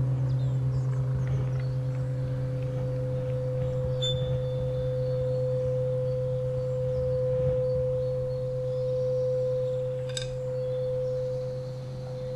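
Ambient drone music of sustained pure tones. A low hum holds steady while a higher, singing-bowl-like tone swells in the middle and fades toward the end. Two faint clicks come about four and ten seconds in.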